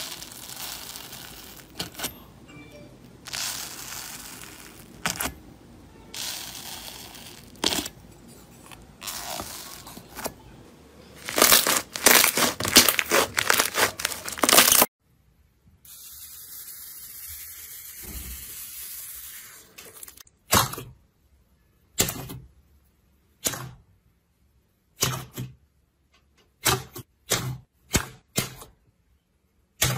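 Slime being raked, stretched and poked by hand, with crackling and tearing noises, loudest and densest a little before the middle. Near the end come short separate pops as fingers press air pockets out of soft pink slime.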